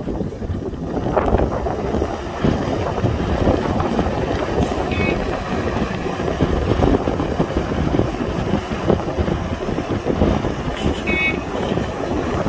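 Diesel engine of an excavator running under working load, with wind rumbling on the microphone. Two short high squeaks, about five and eleven seconds in.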